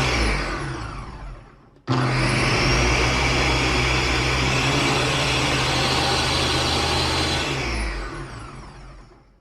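Ninja BN801 blender motor pulsed while puréeing tomatoes: a burst at the start winds down with a falling whine, then the button is held for a run of about five and a half seconds that cuts out and spins down over about two seconds.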